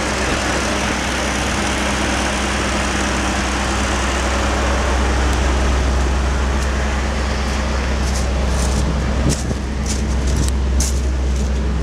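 Bentley 6.75-litre turbocharged V8 generator engine running on LPG, holding a steady speed as it drives a 50 kVA three-phase alternator. Crackling footsteps on gravel come in over it in the last few seconds.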